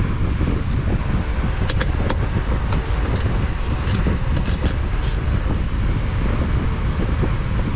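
Steady low rumbling noise of the kind wind makes buffeting a microphone, with a few light, sharp clicks about two to five seconds in.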